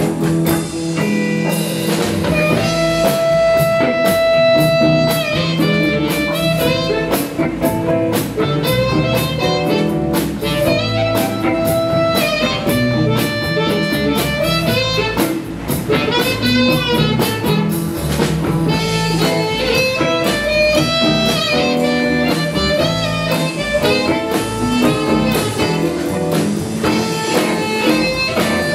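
Live blues band playing an instrumental passage, with no vocals: electric guitars, bass guitar and drum kit, with a harmonica played into the microphone.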